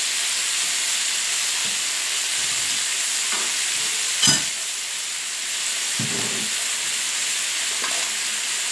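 Steady sizzling of frying: galunggong (round scad) in hot oil in one pan and cabbage cooking in a wok beside it. A single sharp knock about four seconds in is the loudest moment.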